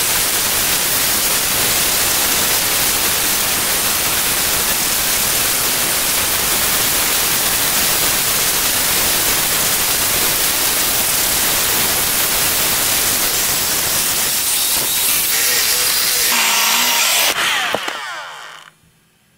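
Roomba 610 robot vacuum running, its motor and brushes making a steady, dense whirring hiss, which fades out and cuts off near the end.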